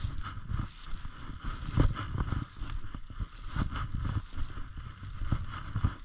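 Snowshoe footsteps crunching and thumping through deep snow, an irregular run of steps with the loudest about two seconds in, over a steady hiss.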